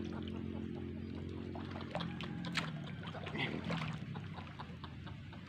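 Water splashing and trickling around a fisherman wading in a reservoir as he moves and handles his rod and line, with a cluster of small splashes about two to four seconds in. A steady low hum lies under it.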